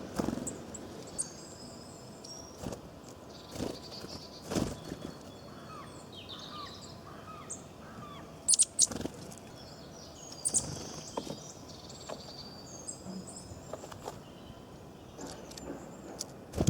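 Small songbirds chirping and twittering in quick, high calls, with several sharp clicks among them, the loudest a close pair about halfway through.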